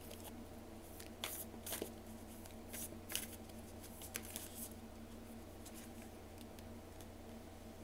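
A deck of tarot cards being shuffled by hand: a run of short card clicks and rustles in the first half, fading out after about four and a half seconds, over a faint steady low hum.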